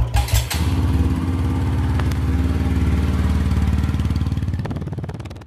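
Motorcycle engine: a pulsing idle that is revved up about half a second in and then runs at a steady pitch as the bike pulls away, fading near the end.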